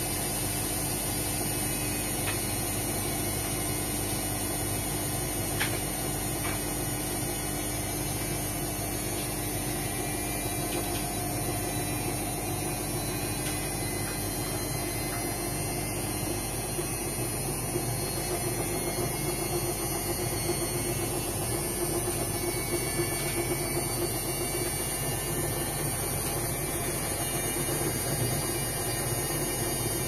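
Indesit front-loading washing machine running a wash, with a steady motor hum and drum noise as it turns the laundry. It grows a little louder and busier about halfway through.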